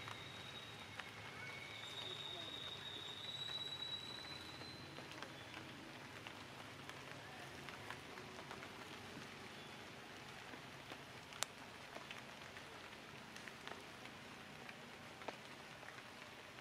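Faint forest ambience after rain: a steady soft hiss of water dripping through the leaves, with scattered sharp ticks of falling drops, the loudest about eleven seconds in. A high, thin whistled note is held for a few seconds near the start.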